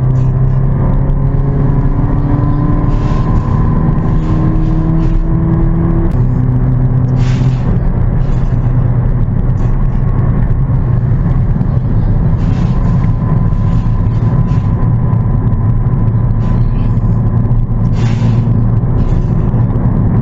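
Car engine running under way: its pitch climbs slowly for about six seconds, drops suddenly as the automatic transmission shifts up, then holds steady.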